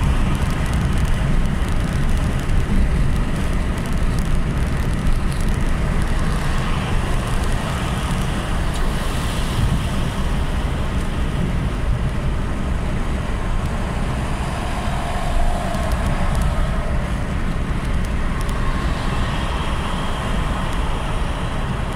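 Steady road traffic noise with a heavy low rumble of passing vehicles.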